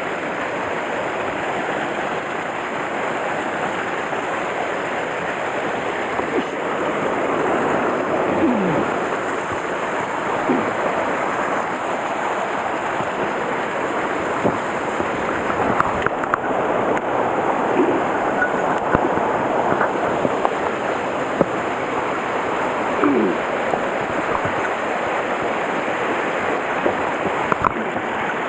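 Mountain stream rushing steadily over rocks, with a few short gurgles and a couple of light clicks.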